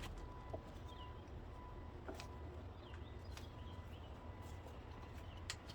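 Faint bird chirps over a low background hum, with a few light clicks scattered through.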